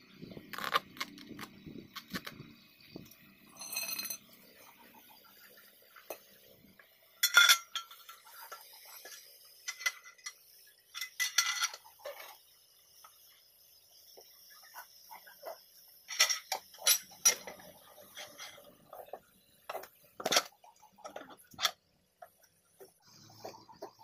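Irregular sharp metal clinks and knocks of steel hand tools, a lever bar and pipe, working against a truck tyre, with several louder strikes scattered through the middle.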